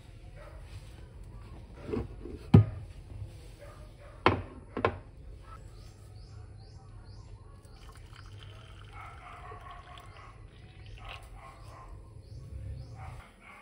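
A few sharp knocks, the loudest about two and a half, four and five seconds in, over a low steady background hum.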